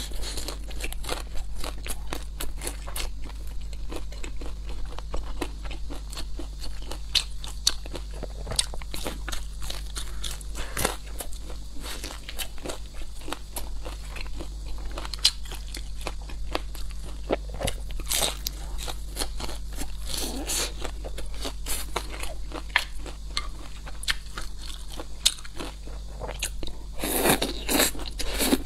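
Close-miked eating of crispy fried vegetable pancakes: crunchy bites and wet chewing, a dense run of small crackling clicks with a few louder bites near the end.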